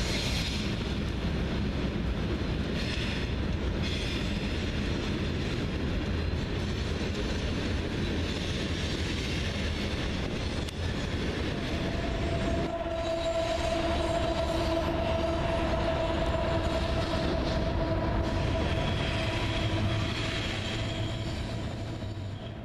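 Freight trains rolling past, with steady rumbling wheel-on-rail noise. About halfway through, a steady high tone starts and holds for several seconds.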